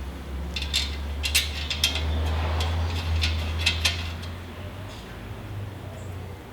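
A dozen or so sharp, irregular metallic clinks over a few seconds, like tools and car parts being handled, over a low steady hum.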